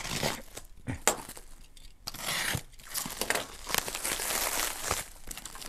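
Plastic wrap and packing tape on a cardboard-padded parcel being slit with a knife and pulled open by hand, crinkling and tearing in uneven bursts with scattered clicks.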